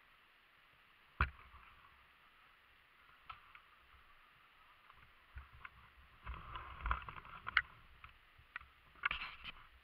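Scattered knocks and clatter with rustling, and no engine note. There is one sharp knock about a second in, and busier bursts of knocking and scraping later on and near the end.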